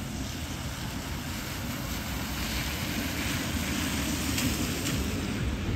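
A bus drives by on a wet road: a low engine hum with tyre hiss from the wet surface, growing louder through the middle.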